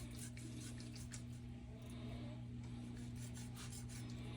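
A dull knife scraping and slicing silver skin off a raw hog backstrap: soft, irregular rubbing and scraping strokes over a steady low hum.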